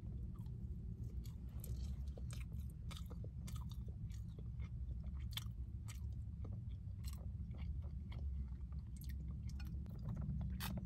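A person chewing and biting mouthfuls of rice and breaded vegan fish fillet close to the microphone, with scattered small clicks of a fork against a plastic container, over a steady low hum.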